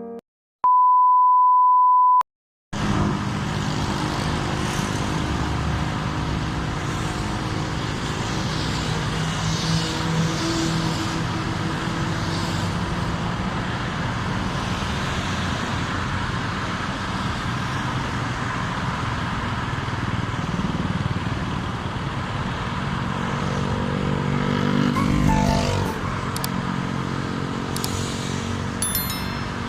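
A steady electronic beep lasting about a second and a half, then road traffic: motor-vehicle engines running with a constant noise of traffic, one vehicle growing louder and passing about 25 seconds in. A few sharp clicks come near the end.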